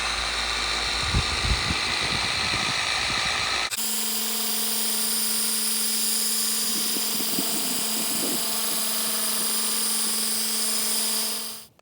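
Power sander running steadily while wet sanding gel coat with 2000-grit paper. About four seconds in the sound changes abruptly to a steadier hum with a clear steady tone. It stops suddenly near the end.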